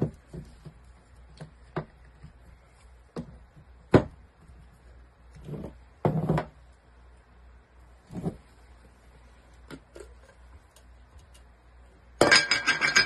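Scattered knocks and handling clicks, then near the end a burst of ringing metallic clinking and scraping as the lid of a metal paint can is pried open.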